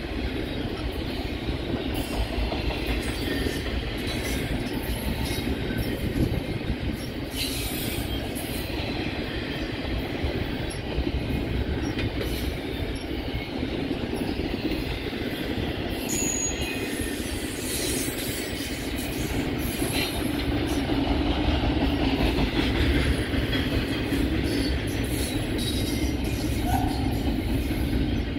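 Double-stack intermodal container train rolling past: a steady rumble of wheels on rail with scattered clicks, growing a little louder in the second half.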